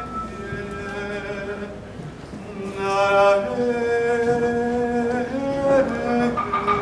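Experimental live music: long held, wordless sung notes that step to a new pitch every second or so, growing louder about three seconds in.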